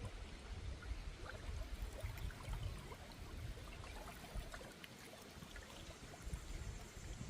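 Water flowing and trickling, with many small splashy ticks over an uneven low rumble.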